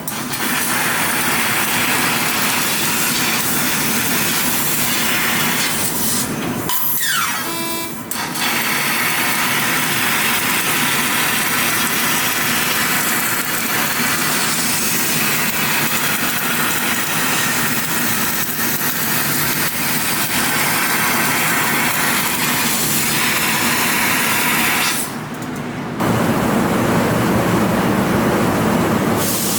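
Steady, loud hissing rush of a 20 kW fiber laser cutting machine cutting thick carbon steel plate. About seven seconds in, a falling whistle-like sweep passes over it, and the sound dips briefly near the end.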